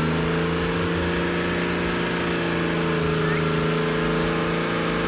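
Isuzu Trooper's engine held at high, steady revs under load as the truck claws forward through deep mud, the pitch sagging slightly around the middle.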